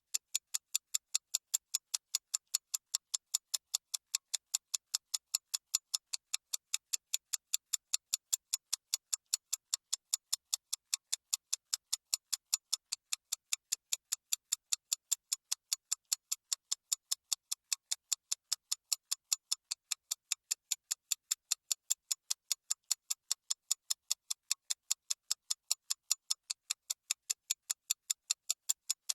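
Clock ticking fast and evenly, sharp high clicks with no pause or change.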